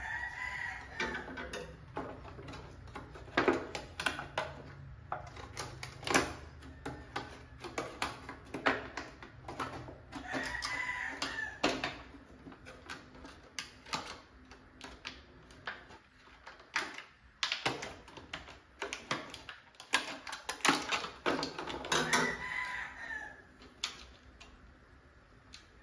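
Scissors snipping through stiff clear plastic packaging, with sharp clicks and crackles as the plastic is cut and handled. A crowing bird call rises and falls three times, about ten seconds apart.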